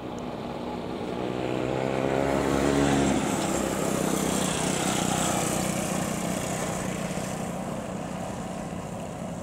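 Engine noise swelling to a peak about three seconds in, a low pitched hum that stops abruptly. A broad rushing noise follows and fades slowly.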